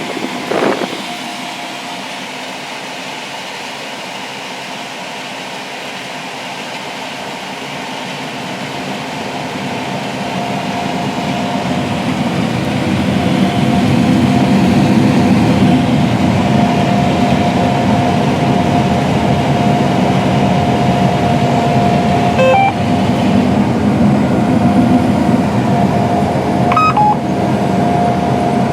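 A John Deere S670 combine running while harvesting corn, a steady machine noise with a constant whine, growing louder from about a third of the way in. A few short beeps sound near the end.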